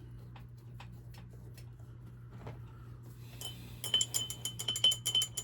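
Rapid metallic clinking, a ball bearing rattling inside a small glass paint bottle as it is shaken, starting about three seconds in with sharp ringing clicks about eight a second.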